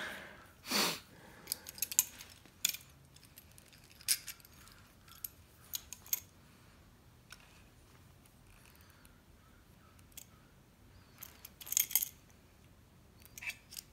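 Small metal clinks and clicks of spray-gun fittings being handled and tightened: the air regulator, filter and thread adapters knocking together. The clinks are scattered, with a longer scrape about a second in, a quiet stretch in the middle and a cluster near the end.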